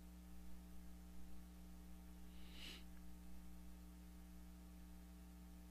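Near silence: a steady low electrical hum, with one faint breath into the microphone about two and a half seconds in.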